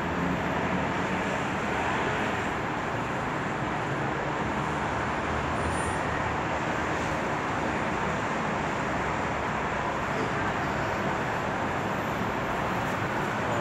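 Steady rumble and hiss of a passenger train standing at a platform, mixed with road traffic noise.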